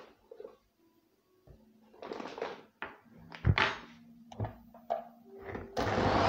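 Knocks and clatter of kitchen things being handled and set down on a countertop, the sharpest about halfway through. Just before the end an electric hand mixer switches on and runs with a steady whirr and a faint high whine, beating eggs and sugar in a plastic bowl.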